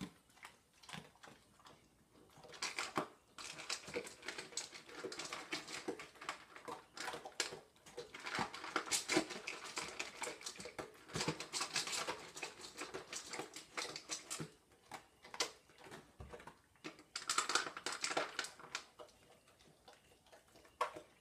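A Doberman pinscher and a kitten eating dry kibble from a stainless steel bowl: rapid, irregular crunching of kibble with clinks against the metal bowl, with a lull about three-quarters of the way through.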